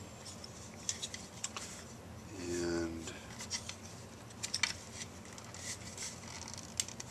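Scattered light clicks and rubbing as plastic skull parts and their wiring are handled and shifted about.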